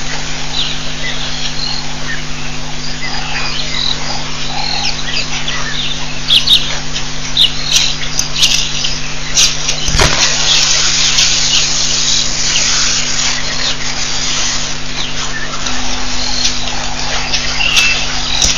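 Several wild birds chirping and calling in short, high notes, busiest in the middle, over a steady low hum and background hiss. A single dull thump about ten seconds in.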